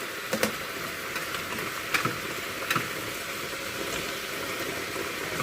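Pork belly stir-frying in a pan: a steady sizzle, with a few sharp clicks near the start and around the middle.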